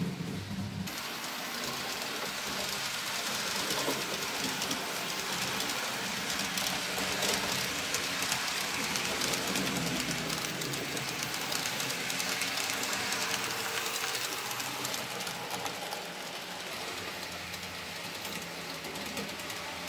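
N-scale model trains running on the layout's track, making a steady, rapid rattling clatter of small wheels over the rails.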